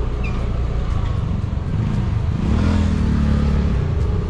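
Road vehicle engine running with road and traffic noise, its note rising and swelling briefly midway as it speeds up.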